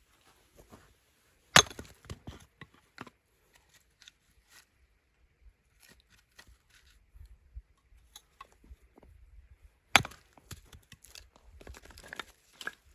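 Wood being chopped: two sharp, loud blows about eight seconds apart, each followed by a run of lighter knocks and crackles.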